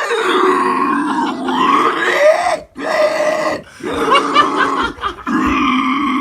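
A man imitating a pig squealing and grunting with his voice, in long strained squeals broken by short pauses, as a pig being caught by dogs.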